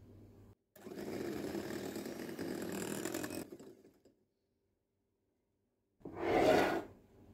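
Electric hand mixer with twin steel beaters running steadily in cake batter for about three seconds, then stopping. Near the end, a short, louder swell of noise about a second long.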